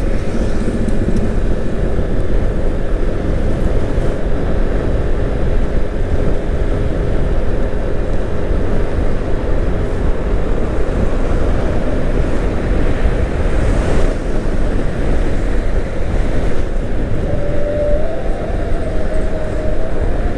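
Wind rushing over the microphone and a Yamaha scooter's engine running at a steady cruise of about 55–59 km/h, with tyre and road noise underneath. Near the end a faint tone rises slightly in pitch.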